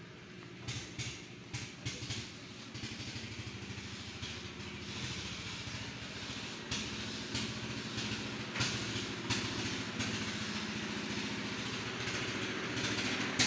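A steady engine drone, with a dozen or so irregular metallic knocks and clanks over it, most of them in the first two seconds and the latter half.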